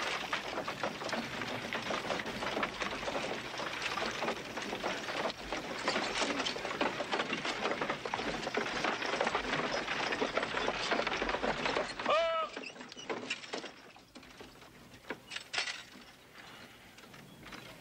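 A horse-drawn covered wagon rolling in: a dense clattering rattle of wheels, harness and hooves, until about twelve seconds in, when a short pitched call sounds and the rattle falls away to a few scattered knocks.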